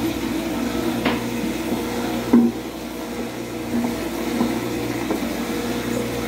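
Steady hum of bakery machinery, with a few light knocks and one louder knock about two and a half seconds in, as batter is poured from a steel mixer bowl into a plastic basin of flour.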